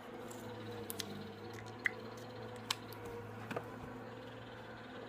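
Steady low drone of a distant lawn mower engine, with a few faint sharp clicks and taps of small objects being handled close by.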